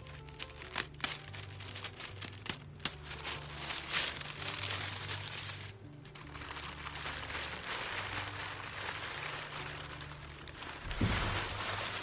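Tissue paper rustling and crinkling as it is folded back and pulled out of a gift box, with a louder rustle near the end as a cloth dust bag is lifted out. Background music with a steady bass line plays under it.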